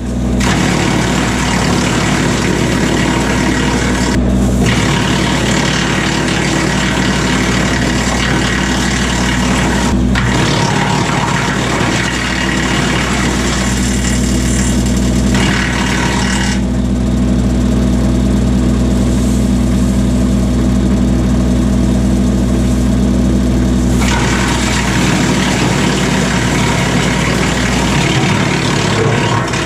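Tractor engine running steadily at high revs, with a loud hiss above it that falls away for several seconds midway and then returns.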